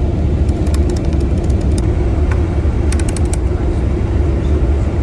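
Tour bus interior on the move: a steady low engine and road drone with a constant hum, and scattered light clicks and rattles.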